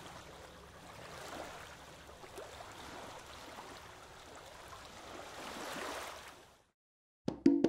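River water lapping and splashing gently against a waterfront bulkhead, a soft steady wash that fades out near the end. Just before the end, a few sharp notes as music starts.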